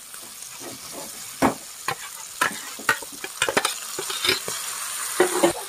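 Chicken liver pieces sizzling in a metal kadai with freshly added gongura paste, while a metal ladle scrapes and knocks against the pan in a series of sharp strokes, more of them in the second half.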